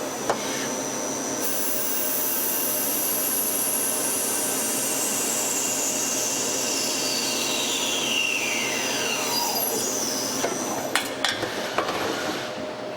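CNC lathe (turning center) running, with a steady mechanical hiss and a high whine that falls steadily in pitch over several seconds. Several sharp clicks come near the end.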